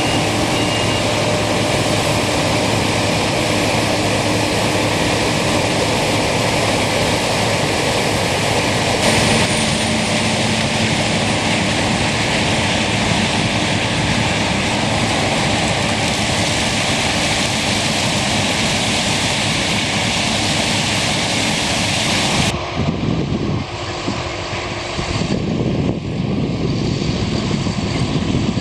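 Combine harvesters running while harvesting corn: a loud, steady machine drone. The sound changes abruptly about 9 seconds in and again about 22 seconds in.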